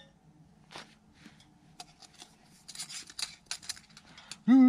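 Light clicks, scrapes and scratchy rustling of metal camp cookware being handled while coffee is made, then a man starts humming near the end.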